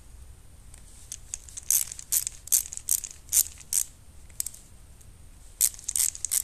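Short, sharp clicks and scrapes of a screwdriver snugging up the small screws on a two-stroke carburettor's cover plate: about two a second for a couple of seconds, then a few more near the end.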